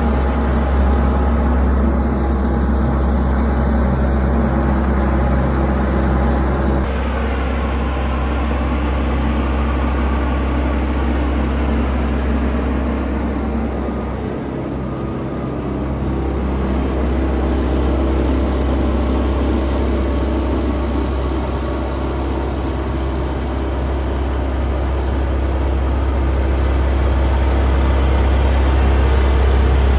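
Fortschritt E514 combine harvester's diesel engine running steadily with a deep hum. The sound changes abruptly about seven seconds in, dips briefly around the middle, then grows louder toward the end.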